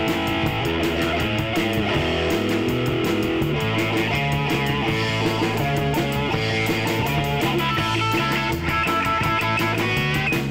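A rock band playing live: electric guitar and electric bass over a drum kit keeping a steady beat with regular cymbal strokes.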